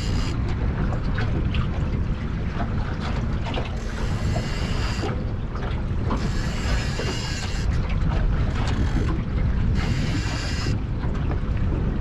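Wind buffeting the microphone in a steady low rumble, with a few faint clicks over it.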